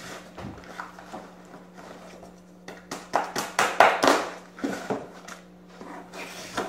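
Cardboard box being opened by hand: flaps pulled back and plastic-wrapped shirts rustling and crinkling as they are lifted out, in irregular bursts that are loudest about three to four seconds in. A steady low hum runs underneath.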